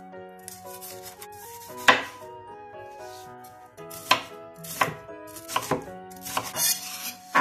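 Chef's knife chopping red bell pepper on a bamboo cutting board: sharp, irregular knocks of the blade hitting the board, the loudest about two seconds in and coming faster in the second half. Background music plays underneath.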